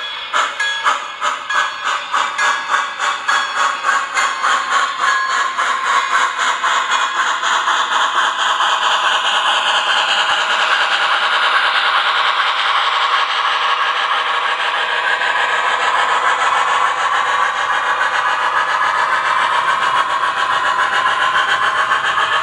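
Model C&O H-8 2-6-6-6 Allegheny steam locomotive's sound unit chuffing as it pulls away, the chuffs quickening until they blur into a steady rush, with the rattle and clatter of the model tank cars rolling over the track.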